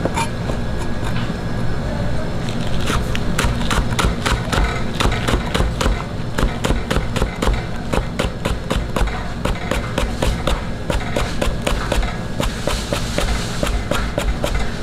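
Chinese cleaver chopping green onions into small rings on a cutting board: a quick, steady run of knocks on the board, several a second.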